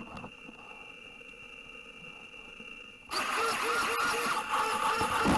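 A faint steady high tone, then about three seconds in the glitter bomb's fart-spray canister goes off with a sudden loud hiss. A rapid run of short pitched pulses sits over the hiss.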